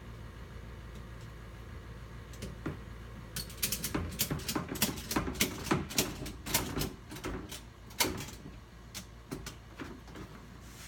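Ratchet cargo strap being worked: a quick, irregular run of clicks and rattles that starts about a third of the way in and stops near the end.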